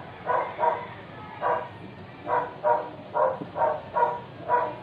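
A dog barking repeatedly, about nine short barks coming two or three a second in quick runs.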